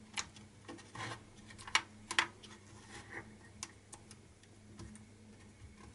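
Scattered small clicks and taps of fingers and plastic as a wired CMOS coin-cell battery is pressed and worked into its recess in a ThinkPad Edge E530c's plastic bottom case, with two sharper clicks about two seconds in.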